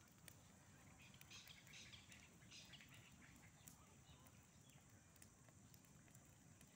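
Faint crackling of a campfire of dry straw burning around a log, with a few sharp pops over a low, quiet background.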